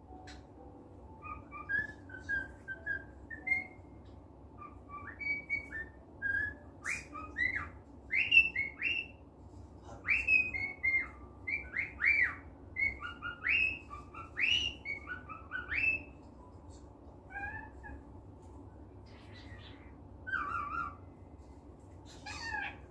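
Pet cockatiel whistling a run of short notes that slide up and down in pitch, busy for most of the first two-thirds, then a few scattered calls near the end. This is a cockatiel whistling happily in a good mood.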